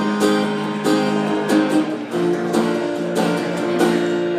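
Guitar strumming chords, with no singing: the chords ring on between repeated strums.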